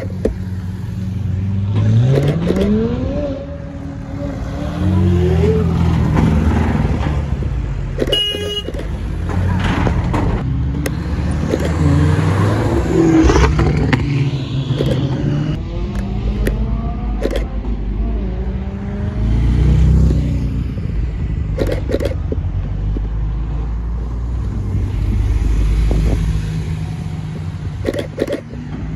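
Cars pulling away one after another, engines running and revving. A few seconds in, one engine revs up with a rising pitch, then rises again after a gear change; another car accelerates the same way about halfway through.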